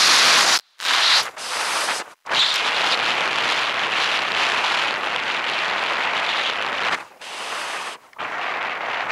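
Wind rushing over the microphone mixed with the scrape of sliding fast over groomed, packed snow on a downhill ski run. The noise cuts out sharply a few times, briefly near the first and second seconds and for about a second around seven seconds in.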